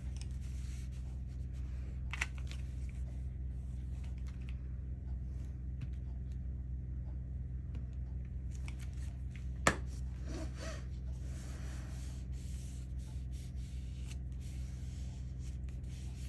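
Paper rustling and rubbing as a sheet is folded over and smoothed down with glue, with a small click about two seconds in and a sharp click a little under ten seconds in. Under it, a washing machine's steady low hum.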